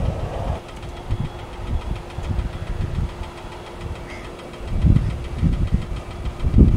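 Boeing 737-800's CFM56 jet engines running at low power, a steady hum under a low rumble that rises and falls, swelling louder about five seconds in and again near the end.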